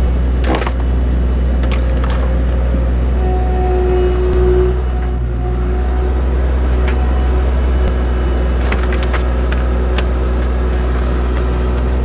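Skid-steer engine running steadily under load, powering the Split-Fire 4206 cross-mount hydraulic splitter as its wedge is pushed through a large log round. The wood cracks and splinters a few times, sharply about half a second in and again in a quick cluster around nine seconds in, as the round splits.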